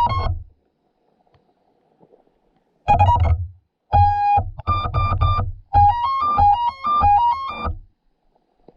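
Background electronic music: short keyboard-synth chord stabs over a heavy bass. It breaks off about half a second in and comes back about three seconds in with a stepping melody, then stops shortly before the end.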